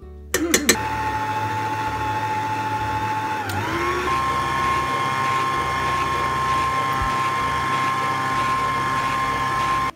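Kenwood stand mixer motor switched on with a few clicks, then running with a steady whine as its flat beater mixes cream cheese frosting. About three and a half seconds in the whine dips briefly, then settles at a higher pitch as the speed goes up.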